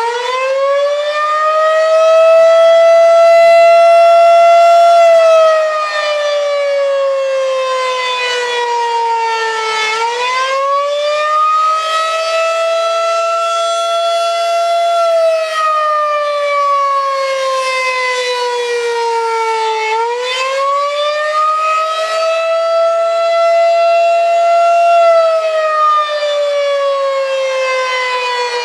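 Federal Signal 2001-130 electromechanical outdoor warning siren sounding a wail during a siren test: its loud single tone rises, holds for about three seconds, then slides down, repeating about every ten seconds.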